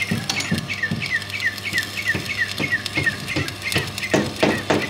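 Stick (manual arc) welding on steel rebar: the arc crackles and sizzles irregularly, with a few louder crackles near the end. A bird chirps over it, short falling chirps at about three a second.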